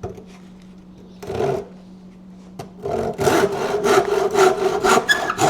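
Hand saw cutting a wooden stake, a short trimming cut to dress up a pointed end. One stroke about a second in, then steady back-and-forth strokes at about three a second from about three seconds in.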